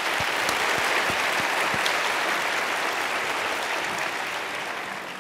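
Audience applauding: a steady spell of clapping from a hall full of people that dies away near the end.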